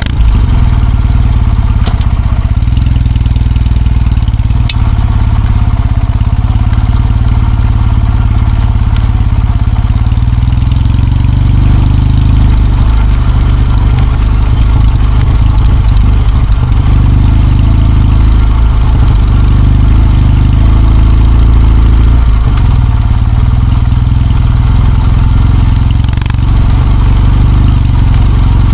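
Kawasaki W650's air-cooled parallel-twin engine running after being started, a steady low rumble.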